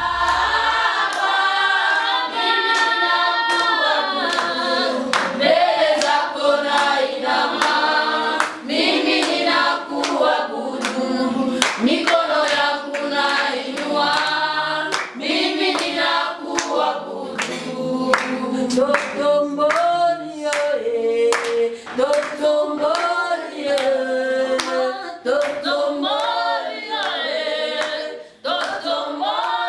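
A group of voices singing together without instruments, with hand claps keeping a steady beat.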